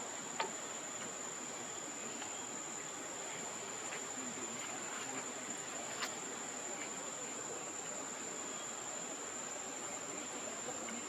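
Insects, cricket-like, keeping up a steady high-pitched drone, with a couple of faint clicks about half a second in and about six seconds in.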